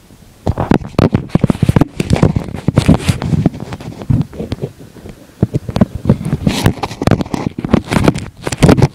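A dense run of irregular clicks, knocks and crackles, many a second, starting about half a second in.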